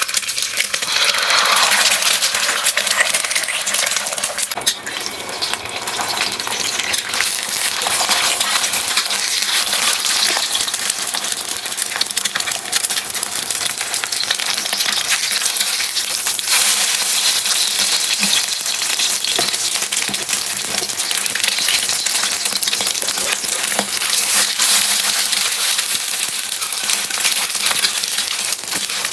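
Food frying in hot oil in a pan: a steady sizzle crackling with many small pops.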